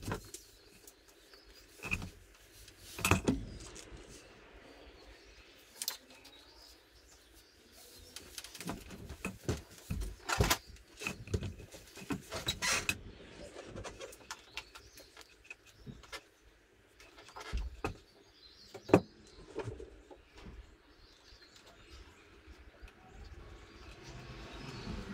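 Scattered clicks, taps and knocks of hands and tools working around a Yamaha R1's engine bay, fitting silicone hoses and their clamps. A sharper knock comes a little before the end.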